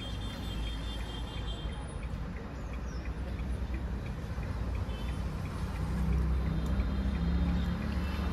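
Street traffic: a steady low rumble of passing vehicles, with a motor vehicle's engine hum growing louder from about five seconds in as it comes close.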